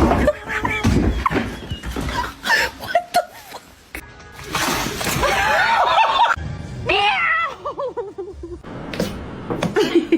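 Music, with bursts of laughter and several sharp knocks.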